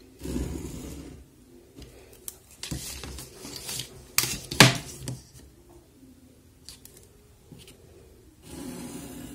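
Scissor blade point being drawn along a plastic ruler to score crease lines into cardstock so it will fold cleanly: several short scraping strokes. A sharp clack comes about four and a half seconds in.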